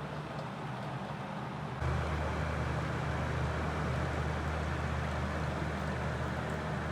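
1997 National Windy Mate 12-inch box fan (F-ER302) running: a steady low motor hum under a rush of moving air. About two seconds in, the sound steps up and grows louder, then holds steady.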